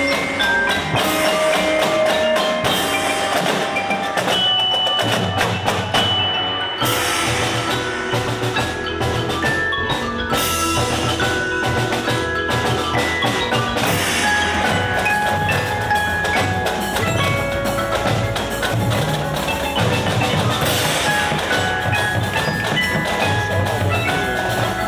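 Marching show band's music with mallet percussion ringing out (bells, glockenspiel, marimba) over drums.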